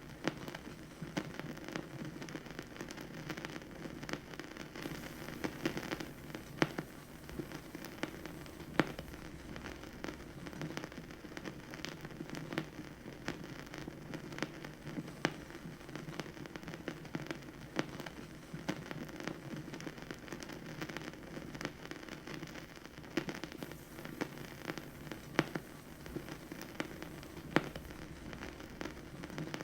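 Vinyl record surface noise from a stylus riding in the groove: a steady hiss with a dense patter of small crackles and a sharper pop every few seconds.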